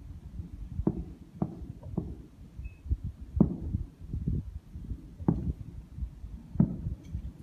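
Fireworks shells bursting: about six deep booms at irregular intervals, each fading quickly, over a low rumble.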